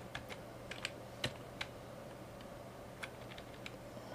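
Computer keyboard keystrokes: a dozen or so separate key clicks at an irregular pace, over a faint steady low hum.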